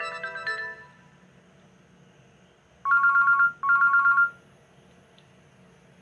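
Nokia ringtone played through a feature phone's small built-in speaker: a short melody of bright notes ends within the first second, then after a pause come two short trilling rings of two alternating tones, like a telephone ring.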